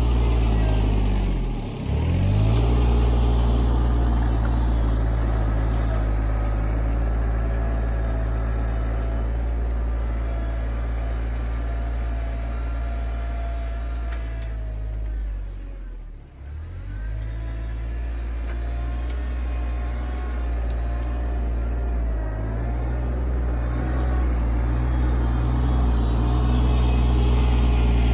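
RK24 compact tractor's engine running steadily under work, with a higher wavering whine over its low drone. The sound drops sharply for a moment about two seconds in and again about halfway through, then comes straight back.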